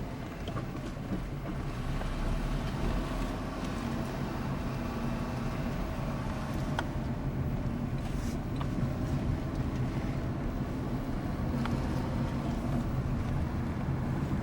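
Car engine and road noise heard from inside a moving car: a steady low hum, with a few faint ticks.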